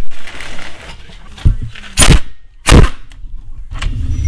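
Two short, loud bursts of tool noise about two-thirds of a second apart, with a dull knock just before them and some low clatter: work on the tight brake caliper mounting bracket bolts.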